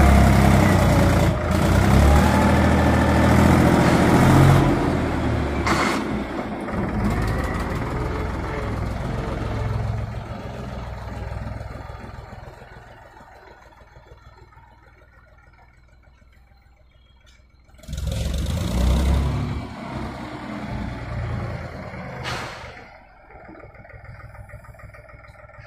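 Mahindra 265 DI tractor's three-cylinder diesel engine running while working its front loader: loud for the first ten seconds or so, then fading low, and rising loud again suddenly about eighteen seconds in, with another brief surge near the end.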